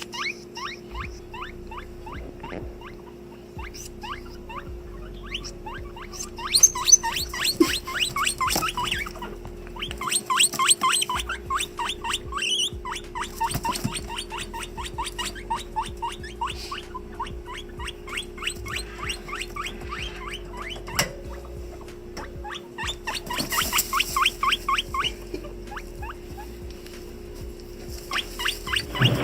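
Guinea pig wheeking to ask for food: a long run of short, high, rising squeals, about four a second, getting louder in several bouts.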